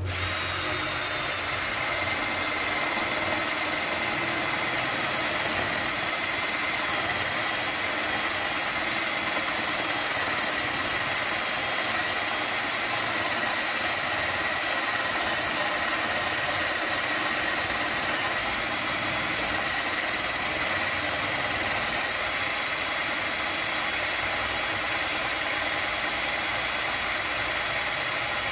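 Tramontina 10.8 V cordless drill/driver running steadily under heavy load as a 20 mm spade bit bores into a thick, rough timber beam, its motor giving a steady whine over the noise of the cutting.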